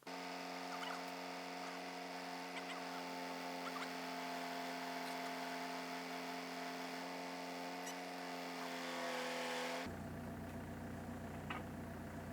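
An engine running steadily, which shifts about ten seconds in to a lower, rougher, pulsing idle.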